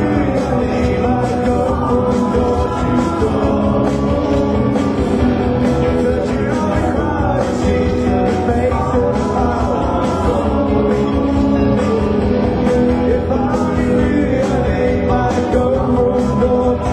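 Rock band playing live, with sung vocals over electric guitars, bass and drums.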